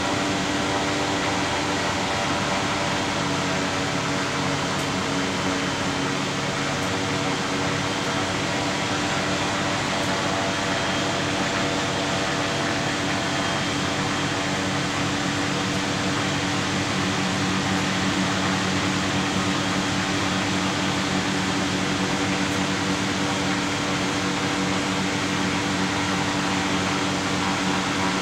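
The spherical airship's Rotax 912 flat-four aircraft engines running steadily in flight, heard from inside the cockpit as a constant, even drone with a steady hum.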